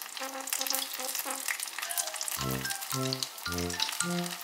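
Oil crackling and sizzling as battered red bean and peanut rice cakes deep-fry in a small stainless steel saucepan. Background music plays over it, light notes at first, then deep bass notes about twice a second from a little past halfway.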